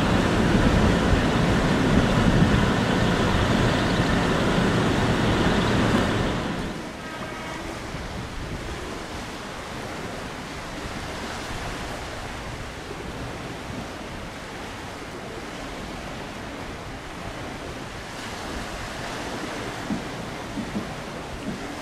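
A train running close by for about six seconds, its noise dropping off sharply, then steady wind and waves.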